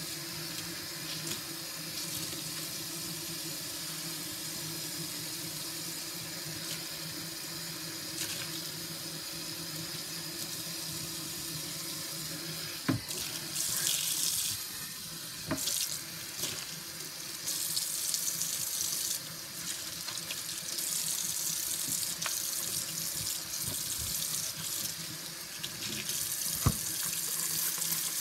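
Kitchen tap running into a soapy stainless steel sink while a sponge scrubs the basin. From about halfway the water splashes louder in uneven bursts, with a few sharp knocks on the steel.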